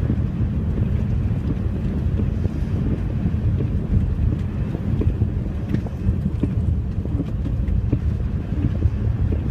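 Storm wind buffeting the microphone: a steady, dense low rumble with small faint ticks scattered through it.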